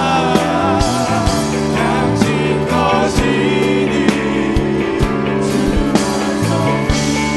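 Live worship band music in a steady beat, with a man singing lead over acoustic guitar in the first few seconds before the band plays on.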